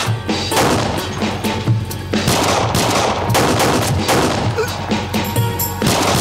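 Handgun shots fired in quick, irregular succession, as in a gunfight with several shooters, over dramatic background music with a low pulsing beat.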